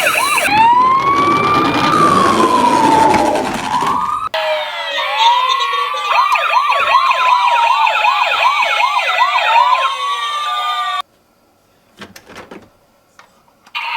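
Several toy ambulance sirens sounding at once, overlapping slow wails and fast yelps. They cut off abruptly twice, and for the last few seconds there is near silence apart from a few faint clicks.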